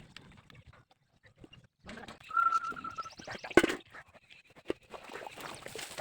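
Farm animals calling: a short, steady, high-pitched call about two seconds in, then a louder, sharper call about a second later.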